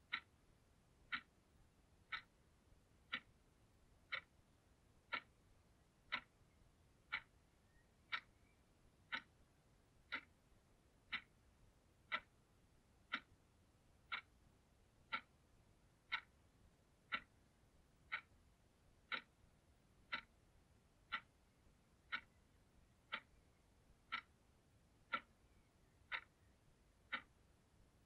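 Analog alarm clock ticking steadily, one sharp tick a second.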